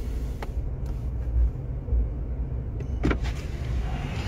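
Steady low rumble of a car heard from inside the cabin, with two faint clicks, one about half a second in and one about three seconds in.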